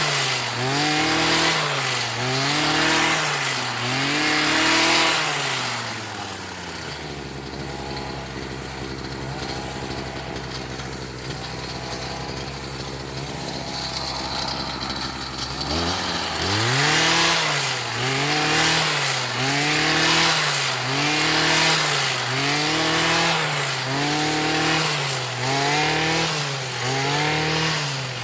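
Single-operator tea plucking machine's small engine revving up and down in a steady rhythm about once a second, the throttle pulsed as it cuts. About six seconds in it drops to a steady idle for roughly ten seconds, then the rhythmic revving resumes.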